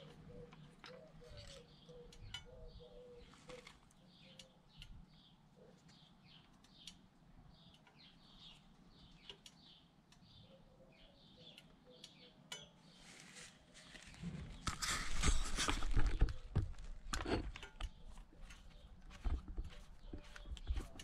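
Faint short chirps repeating about twice a second, typical of an animal calling. About fourteen seconds in comes a louder rustling noise lasting a few seconds, followed by scattered knocks.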